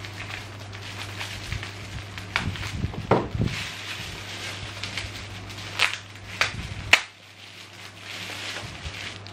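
Plastic bubble-wrap packaging crinkling and rustling as it is cut open with scissors and handled, with a few sharp clicks about two-thirds of the way through.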